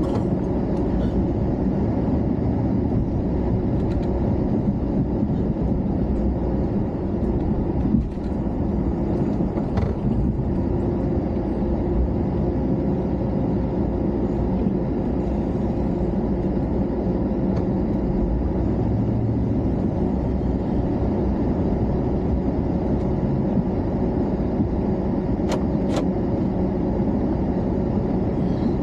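Engine running steadily, with two faint clicks near the end.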